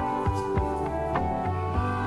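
Background music: a sustained low bass under a melody of plucked notes that strike every half second or so.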